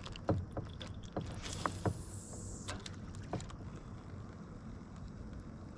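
Casting a large swimbait on a fishing rod and reel: a few light clicks, then a brief hiss of line paying out about two seconds in, followed by faint steady handling noise.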